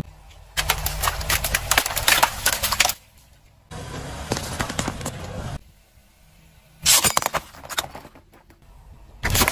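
Car tyre crushing objects on asphalt in separate short clips. First about two seconds of dense crackling and crunching as tea-light candles in aluminium cups are flattened, then a second stretch of crushing from a row of lemons. About seven seconds in comes a sharp, loud crack as a ceramic plate heaped with M&Ms shatters, and a further burst of crunching follows near the end.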